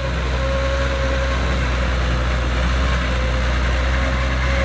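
Massey Ferguson 290 tractor's four-cylinder diesel engine running steadily under load while it pulls a rear-mounted tiller through dry soil, with a steady high whine over the engine.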